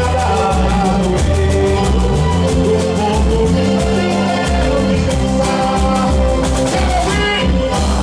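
Boi-bumbá toada played live by a band, with a steady percussion beat, heavy bass and singing.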